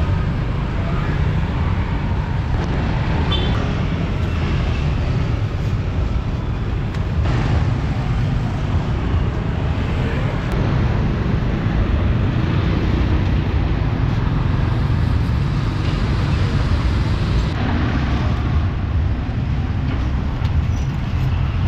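Steady rumble of street traffic, with no single event standing out.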